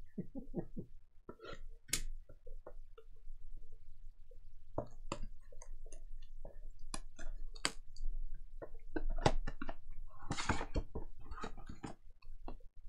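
Trading card packs and cards being handled and opened: a string of light clicks, taps and crinkles, with a denser stretch of crinkling about ten seconds in.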